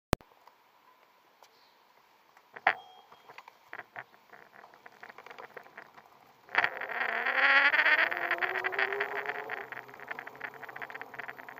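A few sharp knocks, then about six and a half seconds in the electric bicycle's 250 W hub motor starts up with a whine that rises in pitch as the bike gathers speed, over a dense rattle. The motor is almost silent in person; here it sounds far louder.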